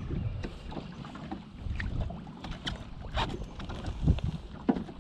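Wind buffeting the microphone over lapping lake water, with irregular small clicks and knocks from the spinning rod, reel and catch being handled as a fish is brought into the boat.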